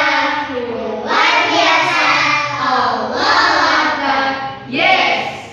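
A class of young children and a woman singing together in unison, in about four short phrases, as a greeting.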